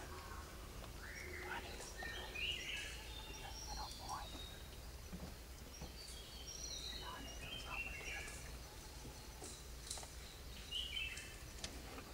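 Forest birds calling: short chirping phrases that step down in pitch, repeated several times, over a steady low rumble.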